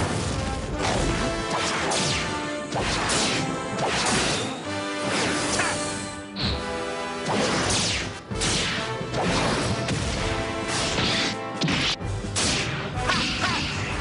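Tokusatsu fight sound effects: a run of hits, crashes and whooshes as a giant hero and a monster trade blows and kicks, over background music.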